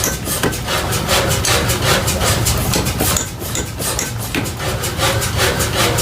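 Fast, rhythmic metalworking strokes, several a second, rasping against the iron workpiece over a steady machine hum.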